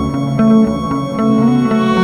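Background music: plucked guitar-like notes over a sustained bass line, with a steady pulse.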